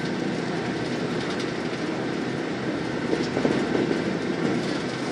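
Steady running noise heard inside a moving road vehicle: engine and tyre rumble with a few faint clicks and rattles.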